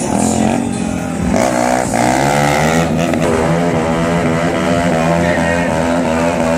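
Sport motorcycle engine revving hard under stunt riding, held at high revs with its pitch wavering up and down as the throttle is worked. It gets louder about a second and a half in.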